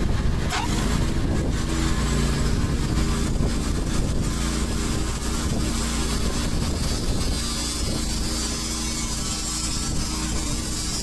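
TimberKing sawmill's gas engine running steadily.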